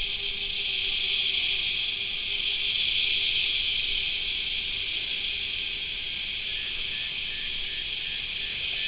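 Steady, high-pitched chorus of insects from the surrounding bush, an even buzz that neither rises nor falls.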